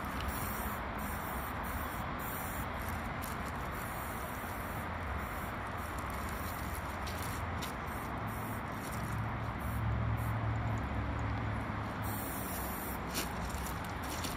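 Steady low rumble and hiss of background noise, the rumble swelling for a few seconds about two-thirds of the way through, with a few faint clicks.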